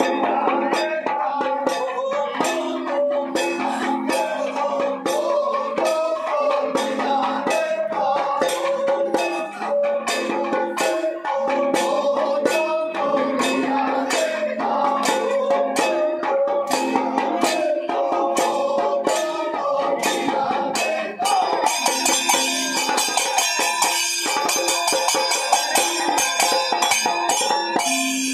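Kanyarkali folk dance music: a group of men singing to a drum and small hand cymbals that keep a steady beat. About two-thirds of the way through, the cymbals quicken into a fast, dense clatter.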